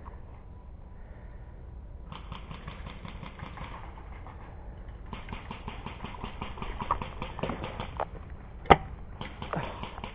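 Bursts of rapid automatic airsoft gunfire, about ten to twelve shots a second: a burst of about a second and a half two seconds in, a longer one of about three seconds, and another starting near the end. A single sharp crack, the loudest sound, falls between the last two bursts, over a steady low rumble.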